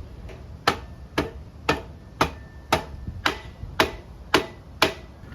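Sharp clicks in a steady, even rhythm, about two a second, nine in all.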